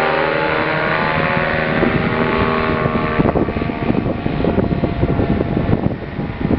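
Paramotor's two-stroke engine and propeller droning steadily as it flies low overhead. After about three seconds the engine tone fades under rough wind noise on the microphone.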